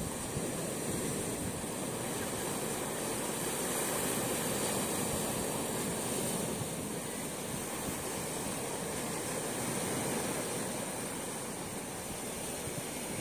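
Sea surf washing in over a flat rocky shore: a steady rushing wash of small waves, with a steady high hiss.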